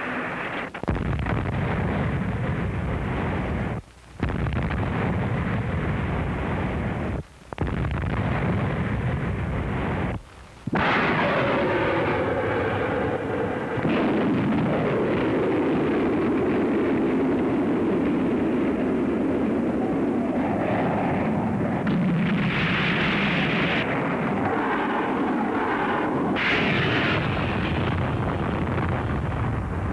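Continuous din of military live-fire exercise sound: artillery and gunfire with explosions, running loud and steady and broken by three brief cuts within the first ten seconds or so.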